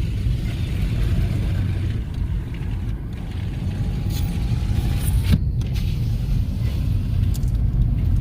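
Car interior on the move: steady low rumble of engine and road noise heard from inside the cabin.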